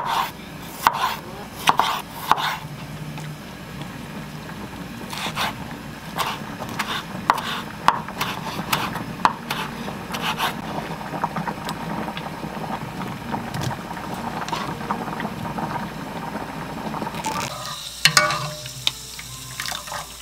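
Chef's knife slicing cherry tomatoes and basil on a wooden cutting board: a series of sharp knocks as the blade meets the board. Near the end, a metal mesh strainer and spoon clink in a saucepan as boiled potatoes are lifted out.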